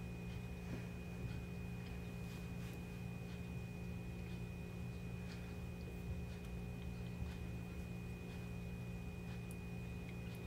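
Steady low hum with a thin, faint high whine, and a few faint soft clicks and taps scattered through it.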